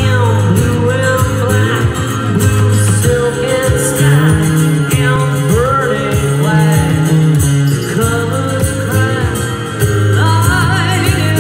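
Live acoustic band playing a slow rock song: acoustic guitars and held low bass notes over a cajon beat, with a male lead vocal.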